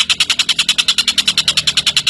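Tengkek buto bird giving its long, rapid chattering call, a steady fast rattle of about fourteen high notes a second with no pause.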